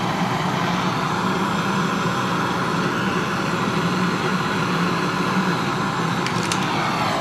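Compressed gas blasting through a refrigerator's opened refrigerant tubing during flushing, a steady loud rush that cuts off suddenly near the end, as oil is blown out of the lines.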